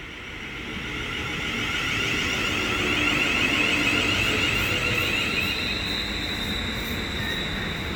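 Class 350 Desiro electric multiple unit running through the station, the rumble of its passage growing over the first few seconds. Over it runs a wavering high electric whine, with a steadier high tone setting in about halfway through.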